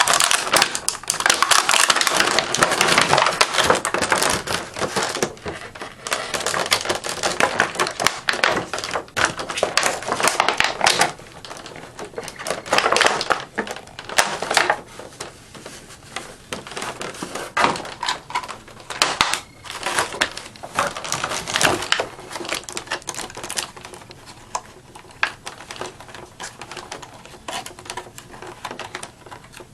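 Stiff plastic packaging handled to free collectible figures: a dense run of clicks, crinkles and scrapes, louder in the first half and fainter in the second.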